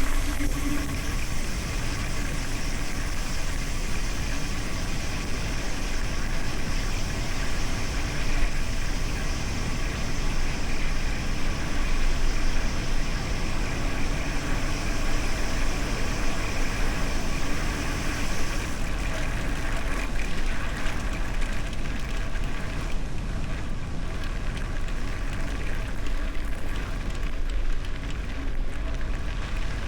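Steady riding noise from a gravel bicycle: tyres rolling and crunching over gravel, with wind rumbling on the camera microphone. The high hiss drops away about two-thirds of the way through.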